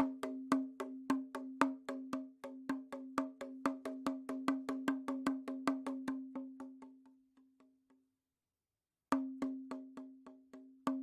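Rattle drum (pellet drum) twirled, its beads striking the heads in a quick even rhythm of about four strikes a second over a ringing drum tone. It fades out about seven seconds in, then starts again after a second of silence.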